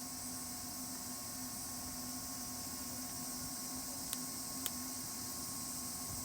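Wood campfire burning: a steady high hiss with two sharp crackling pops, about four seconds in and again half a second later.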